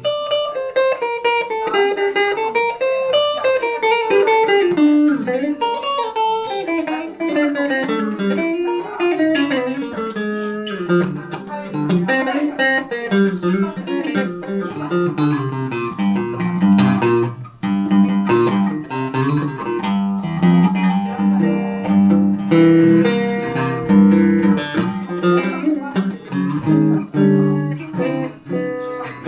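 Van Zandt Telecaster electric guitar through a Roland JC-120 amp, played solo: a running melodic line of single notes over repeated bass notes, with no singing.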